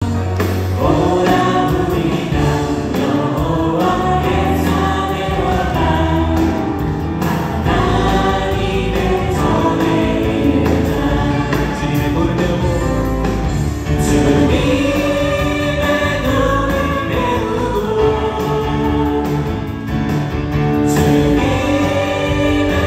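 Contemporary worship music: a praise team singing together over a band of keyboard, electric guitar, bass guitar and drums.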